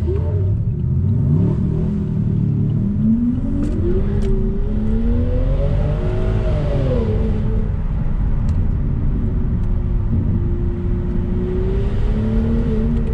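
Straight-piped 6.0-litre V12 of a BMW E66 760Li accelerating, its exhaust note climbing in pitch for several seconds, falling back about six to seven seconds in, then holding a steady note at cruising speed, heard from inside the cabin.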